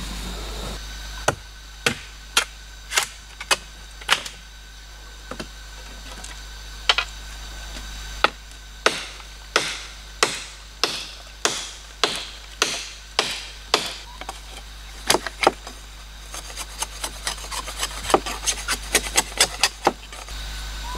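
Machete chopping and shaving a wooden stick: sharp knocks of the blade biting into wood, one or two a second, some followed by a short scrape. Near the end the strokes come quicker and lighter, three or four a second.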